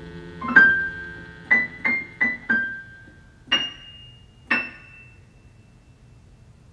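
Music: the tail of a held chord fades, then seven high keyboard notes are played one at a time, each ringing and dying away, the last two more widely spaced.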